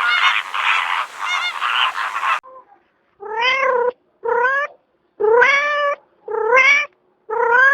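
A flock of large birds honking and calling over one another cuts off abruptly about two seconds in. After a short gap, a domestic cat meows five times in a row, each meow rising and then falling in pitch.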